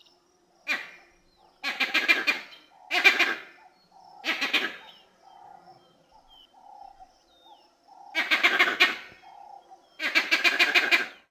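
Vervet monkey calling: six loud calls with pauses between. The longer calls are made of rapid, pulsing chatter, and softer calls and faint chirps come in the gaps.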